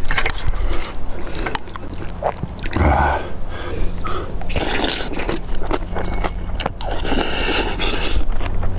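A person eating close to the microphone: chewing and slurping shrimp seaweed soup and kimchi, with many small clicks and a longer slurp near the end.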